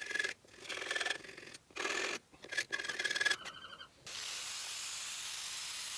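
Steel scribe scratching along sheet metal in a series of short rasping strokes, scoring a line around a patch panel, with a brief squeak near the end of the strokes. After about four seconds a steady hiss takes over.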